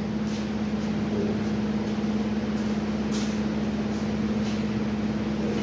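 A steady low machine hum at one fixed pitch, with a faint tick or two.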